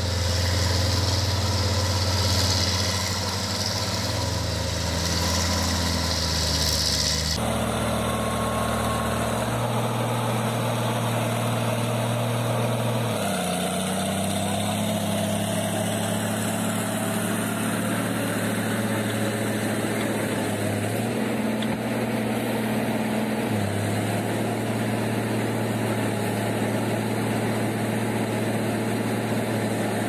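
Heavy diesel engines of logging machinery, a crawler bulldozer and a loaded logging truck, running steadily. The engine note steps up and down in speed several times, and the whole sound changes abruptly about seven seconds in.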